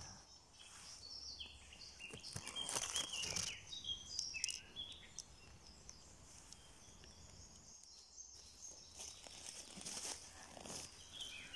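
Small birds singing in short, high, stepped phrases during the first few seconds and again near the end. Dry leaf litter rustles and crunches underfoot in short bursts.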